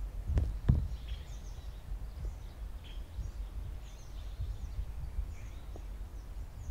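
Low rumble of wind on the microphone in an open field, with two short knocks near the start and faint, high bird chirps scattered over it.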